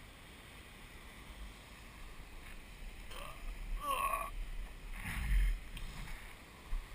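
Wind rumbling on the microphone over the steady wash of large surf, with faint distant voices briefly heard near the middle.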